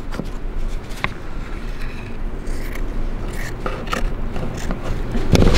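Gloved hand pressing and smoothing a polyester fleece patch into wet silicone roof coating on sheet-metal roofing: soft rubbing and scraping with a few light clicks, and a louder low thump near the end.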